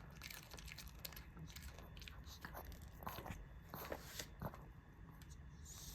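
Dog chewing a treat: irregular crunching and biting.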